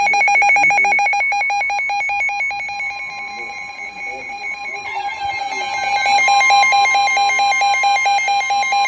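Emergency alert attention tones: a rapid, evenly pulsing electronic beeping alarm at two pitches. A steady high tone joins it about five seconds in, and the alarm grows louder again.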